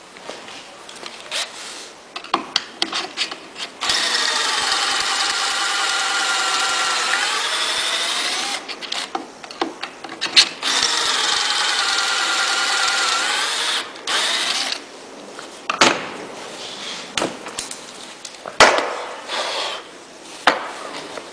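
Electric drill running a pocket-hole drill bit through the jig into a board, in two runs of about four seconds each, the motor's pitch sagging toward the end of each run as it loads up. Sharp clicks and knocks of the clamp and workpiece being handled come between and after the runs.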